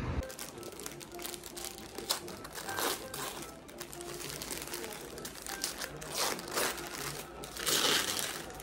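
Crinkling and rustling handling sounds with scattered small clicks and knocks, under quiet background music; the loudest rustle comes near the end.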